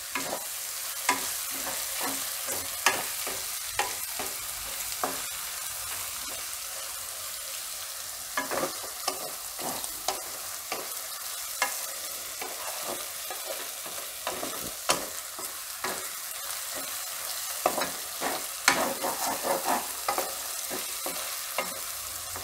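Chopped onion, spring onion and green garlic sautéing in hot oil in a nonstick pan: a steady sizzle, with a spatula scraping and knocking against the pan as it is stirred. The knocks bunch together about eight seconds in and again near the end.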